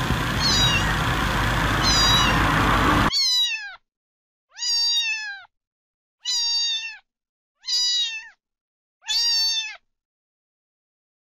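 Domestic cat meowing: two faint meows over a steady rushing background noise, then a cut to clean quiet and five clear meows in a row, each under a second long, rising and then falling in pitch, about one and a half seconds apart.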